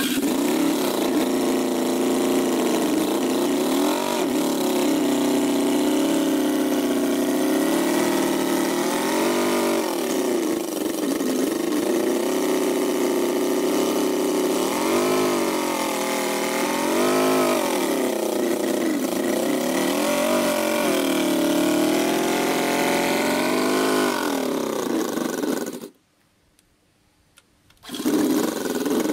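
Small Ferrari V8 engine running, its pitch rising and falling repeatedly as it is revved. It cuts out abruptly for about two seconds near the end, then runs again.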